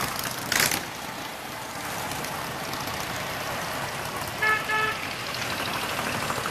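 Harley-Davidson motorcycles riding past, with a brief loud rush of noise just after the start. About four and a half seconds in, a horn gives two short toots.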